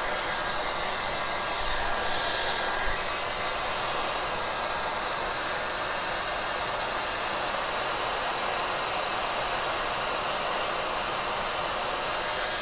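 Handheld hair dryer blowing steadily on high, drying wet paint on a wooden sign.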